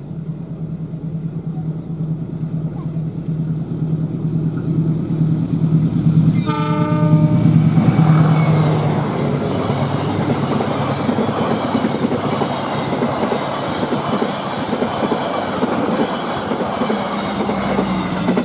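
Diesel locomotive approaching with its engine running and growing louder, sounding its horn once for about a second and a half a little past six seconds in. After that, a long rake of passenger coaches rolls past close by, with wheel and rail noise.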